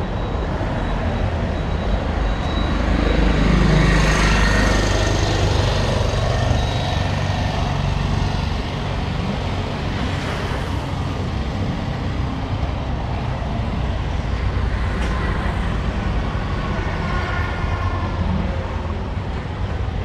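Street traffic: a steady rumble of engines and tyres, with one vehicle passing close and loud about four seconds in and another a few seconds later. Faint voices near the end.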